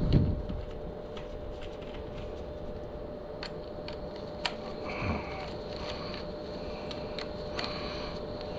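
Workshop handling noises of metal tools and motorcycle parts: a dull thump at the start, a sharp click and a smaller thump about five seconds in, and scattered light clicks and knocks, over a steady faint hum.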